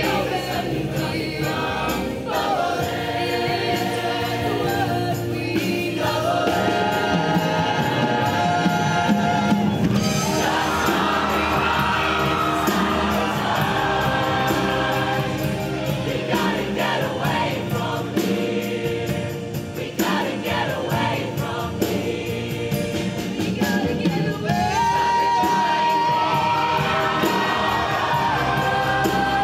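Mixed-voice show choir singing in harmony, with long held notes.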